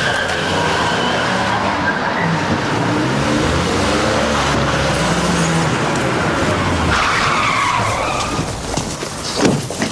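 Police cars and a van driving in fast and pulling up hard, engines revving with tyres squealing. A falling tyre squeal comes about seven seconds in.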